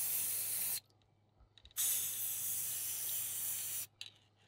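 Aerosol spray-paint can spraying paint onto a tub of water for hydro dipping, in two bursts: one stops under a second in, and a longer one of about two seconds starts just before the middle.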